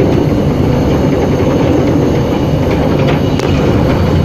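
A Class M4 (MLW MX-620) diesel-electric locomotive running along the line: a steady, loud, low rumble of the diesel engine and wheels on rail heard from the cab, with a few faint clicks of wheels over the track about three seconds in.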